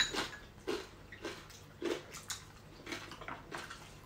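People chewing food close to the microphone: soft, irregular mouth smacks and clicks, about one or two a second.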